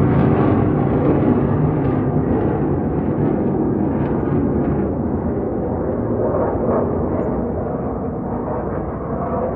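Jet noise from two F-16 fighter jets flying by, a low, dense rumble that slowly fades as the aircraft pass and draw away.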